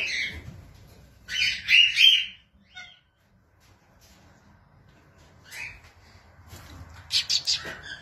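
Cockatiels calling with short, harsh squawks: a loud run of three or four about a second or two in, a lone call past the middle, and another quick cluster near the end.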